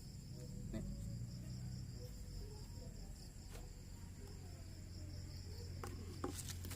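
Crickets chirring steadily in the background with a high, even trill, over a low steady hum and a few faint clicks near the end.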